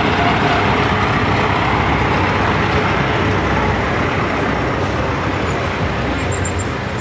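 Steady wind rush on the microphone and tyre noise from a bicycle riding along a paved road, easing a little in the second half.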